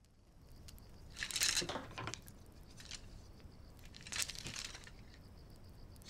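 Two brief, soft rustles, one about a second in and another about four seconds in, over faint room tone.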